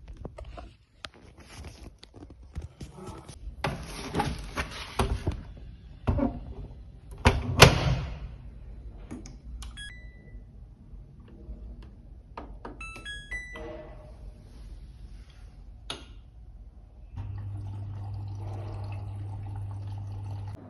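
Household handling noise: scattered knocks and rustling, with a loud clunk a few seconds in. A few short electronic tones follow, and near the end a steady low hum sets in.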